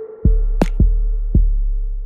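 Electronic background music with a steady drum-machine beat: deep kick thumps and a sharp snare-like hit over a held synth tone.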